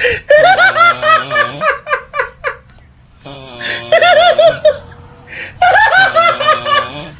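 High-pitched laughter in three bursts of quick giggling, each about a second and a half long. A lower steady voiced tone runs under each burst.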